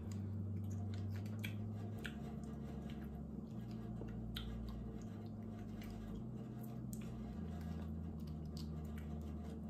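Faint scattered clicks and scrapes of a small metal pick working meat out of cooked blue crab claw shells, over a low steady hum.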